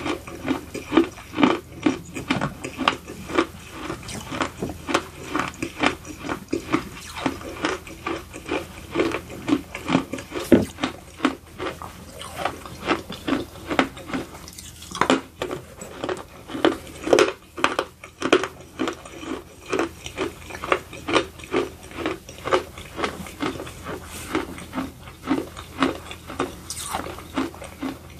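A person chewing pieces of edible baked clay up close, each bite crunching in a steady rhythm of about two chews a second.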